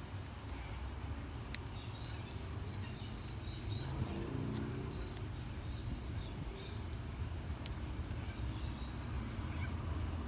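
Steady low rumble of wind buffeting the microphone, with faint high bird chirps and a few light clicks from hands handling the wire and electrical tape.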